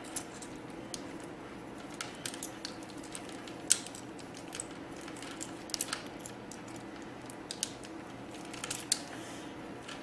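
Hand crimp tool working on small wire terminals: scattered sharp clicks and snaps as the jaws close and the tool and wires are handled, over a faint steady hum.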